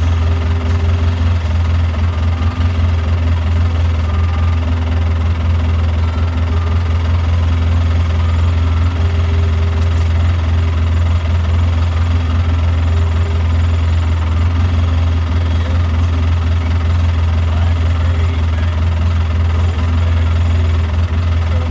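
Steady low drone of a vehicle's engine and road noise heard inside the cab while driving.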